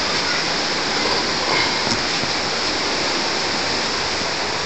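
A steady, even rushing noise with no rhythm or break.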